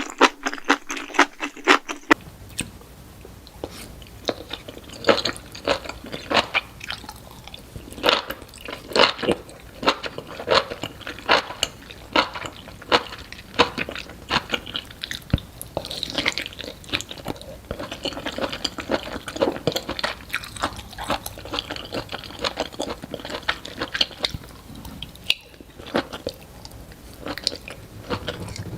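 Close-miked chewing and biting of enoki mushrooms: a quick, continuous run of crunchy, wet bites and chews, several a second.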